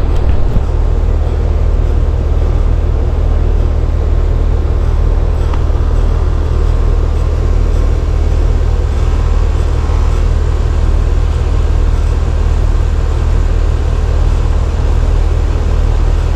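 Air-conditioning outdoor unit running, a steady low drone from the compressor and condenser fan close to the microphone.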